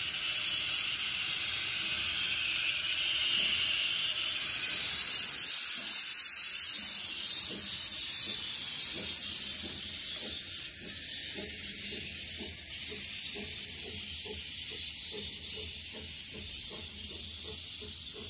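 Narrow-gauge saddle-tank steam locomotive pulling away with a loud hiss of steam escaping from its cylinders. The hiss fades after about ten seconds as the carriages roll past, their wheels clicking over the rail joints about twice a second.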